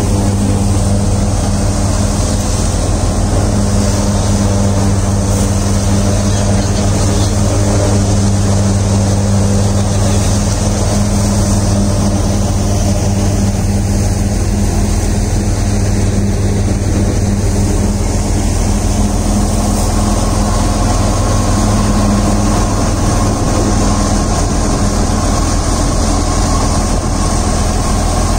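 Wheat thresher running steadily while threshing wheat: a loud, constant machine drone with a steady low hum and a noisy rush over it.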